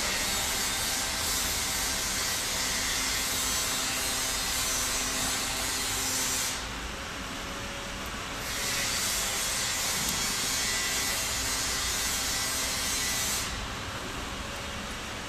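Steady hissing noise in two long stretches, about six and five seconds long, each starting and stopping abruptly.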